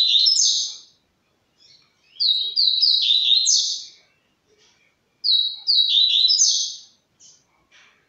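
Caged songbird that the owner calls a canela-branca, just starting to sing: three short song phrases about two seconds apart. Each phrase is a few evenly repeated high notes, then a quick, jumbled flourish that climbs higher.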